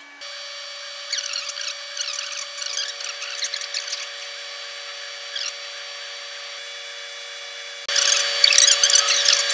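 Laser cutter cutting cardboard: a steady machine hum with irregular high, scratchy crackling over it as the head works; it gets louder about eight seconds in.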